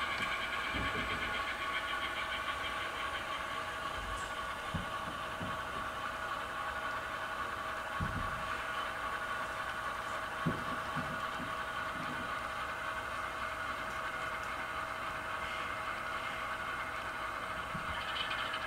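Model diesel locomotives' onboard sound decoders playing a steady diesel engine sound through small speakers, with a few low knocks scattered through it.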